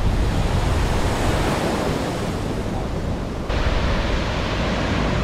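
Ocean surf washing onto a sandy beach, with wind buffeting the microphone as a low rumble. About three and a half seconds in, the noise suddenly turns brighter.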